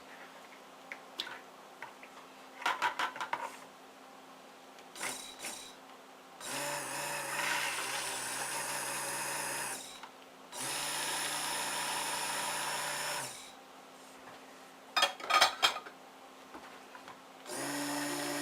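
Handheld stick blender run in short bursts, about three seconds each: twice, then once more near the end. Light clinks and knocks come in between. It is mixing the just-added fragrance oil and additives into the oils for cold process soap.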